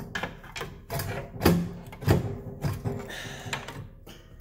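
Steel pry bar knocking and scraping against the rear suspension's spindle and lower control arm as it levers the bushing loose: about six sharp metallic knocks, the loudest about a second and a half in.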